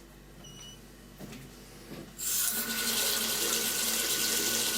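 Mixer tap opened about two seconds in: water rushes from it steadily, with a steady whistling tone over the flow. This is the tap's 'singing', most likely from a worn rubber seal on its cartridge valve.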